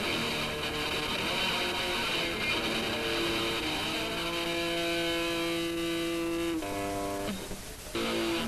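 Punk band practice recorded on cassette: guitar strumming, with a chord left ringing for a couple of seconds about halfway through, then a change of chord and a brief drop in level near the end.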